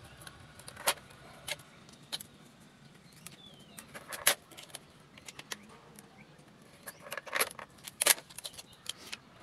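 Scattered sharp clicks, taps and light scrapes of a glass pane and a white edging strip being handled and pressed together. The loudest knocks come a little past four seconds in and again at about seven to eight seconds.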